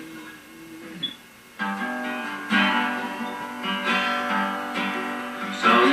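Acoustic guitar strummed: a chord rings and dies away, there is a short pause a little after a second in, then strumming starts again with a chord about every second.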